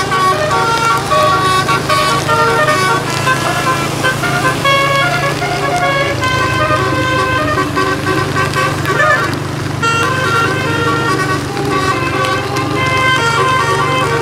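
A bus's telolet horn (a basuri multi-tone air horn) playing a fast tune of stepped notes, often several at once, over the steady low hum of the bus's engine.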